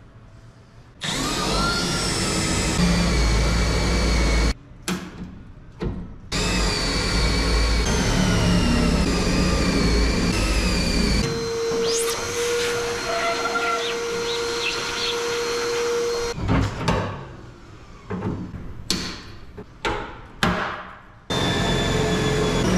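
Electric drill running in several long runs with brief stops, its pitch sliding as it bores out the spot welds in steel body panels.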